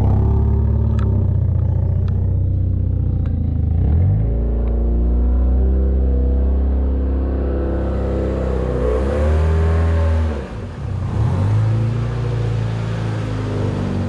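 The 2000 Hyundai Excel's twin-cam four-cylinder engine running as the car is driven slowly. The revs step up about four seconds in, then drop and pick up again around ten seconds.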